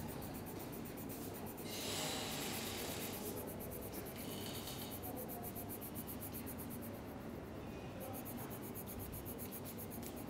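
Green colour pencil scratching faintly on a workbook page as it fills in a small drawing, louder for a stretch starting about two seconds in and again briefly about four and a half seconds in.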